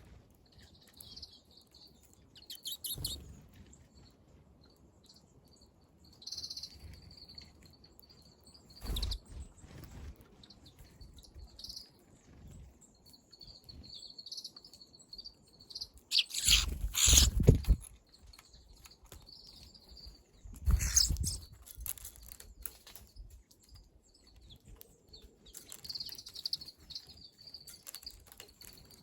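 Small wild birds giving short, high chirps at a terrace in winter, with several sharp knocks and rustles between them, the loudest cluster about seventeen seconds in.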